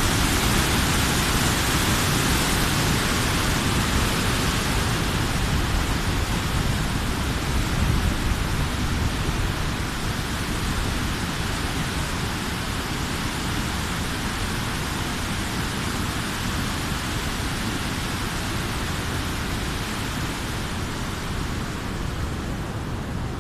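River water pouring over a run-of-river dam's concrete weir and churning below: a steady rush of white water with a deep rumble underneath. It eases a little after about ten seconds.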